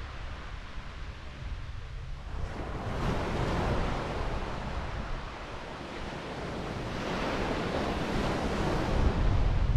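Surf washing onto a sand beach, with two swells of wave noise, one about a quarter of the way in and another near the end. Wind rumbles on the microphone underneath.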